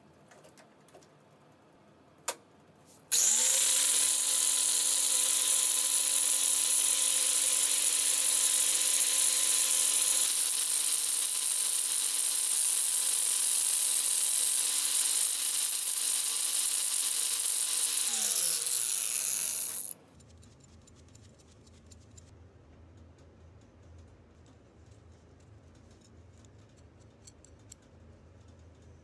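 Angle grinder switched on about three seconds in, quickly reaching a steady whine while a threaded steel rod is ground against its abrasive disc. Near the end it is switched off and winds down with a falling whine, leaving only faint clicks.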